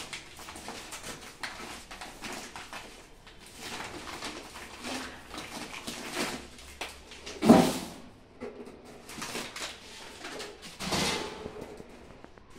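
Plastic carry bags and grocery packets rustling and crinkling as they are handled and unpacked, with a louder bump about seven and a half seconds in.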